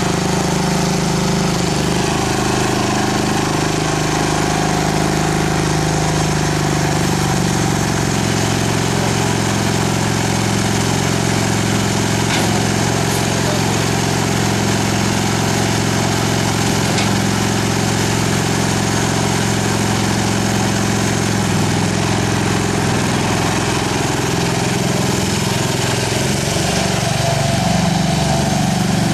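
Engine of a modified John Deere STX-38 lawn tractor running steadily. Its pitch shifts slightly about a quarter of the way in and again near the end.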